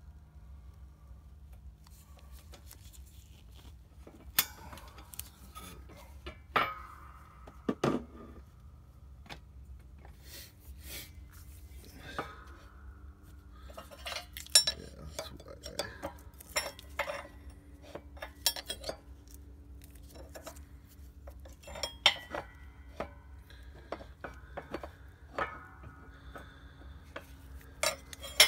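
Irregular sharp metallic clicks and ticks as a hand-operated shop press slowly forces a new wrist pin bushing into the tapered small end of a Cummins 4BT connecting rod, with a steady low hum underneath.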